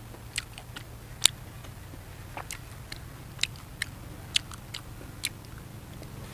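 A person chewing a mouthful of fish salad with crisp raw vegetables: irregular sharp crunches, roughly one every half second, over a low steady hum.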